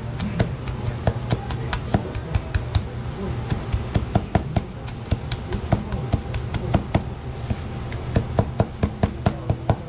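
Kitchen knife chopping striped jack (shima-aji) with green onion and ginger on a cutting board, mincing the fish for namerou: a fast, uneven run of sharp knocks, several a second. A steady low hum lies underneath.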